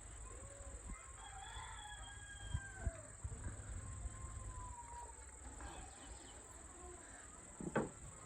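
A rooster crowing, with a few small clicks and a sharp knock near the end.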